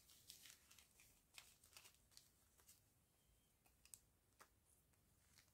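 Near silence, with faint scattered clicks and crinkles from small plastic zip bags of diamond-painting drills being handled.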